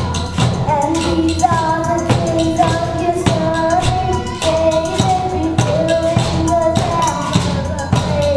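A young girl singing a melody into a microphone over a steady beat of steel kitchen pots, pans and vessels being struck as percussion.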